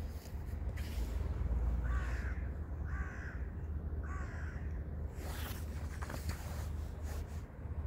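Three short, harsh animal calls about a second apart, over a steady low rumble, with a few sharp knocks near the end.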